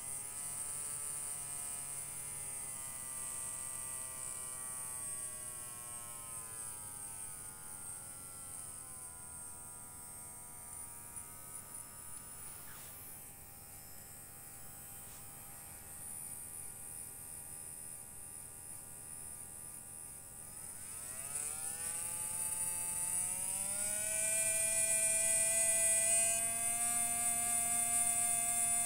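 Small brushed DC can motor whirring on a bench power supply, its speed following the voltage setting. Its whine slides down in pitch as the voltage is turned down from about 5 V toward 2.5 V and runs slowly. About three-quarters of the way through it rises steeply as the voltage is turned up toward 9 V, then settles into a higher, louder steady whine.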